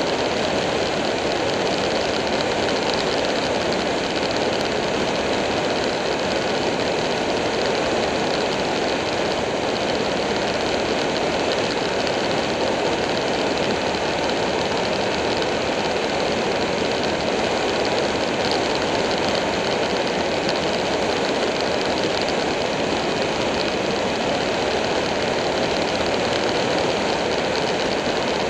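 Buell 1125R sport bike's V-twin engine running at a steady cruising speed, mixed with a constant rush of wind and road noise on the bike-mounted camera's microphone.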